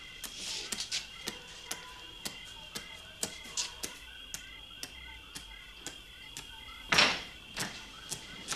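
A door is thrown open about seven seconds in, the loudest sound here. Under it runs a steady high-pitched whine, with a short chirp repeating about twice a second and scattered light clicks.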